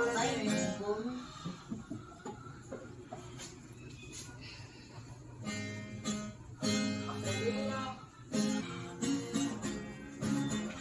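Background music: acoustic guitar strumming in phrases, with a voice over it at times.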